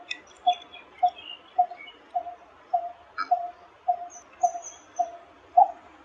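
Coppersmith barbet calling: a steady, evenly timed series of short low 'tuk' notes, just under two a second. Faint higher chirps from other small birds sound behind it.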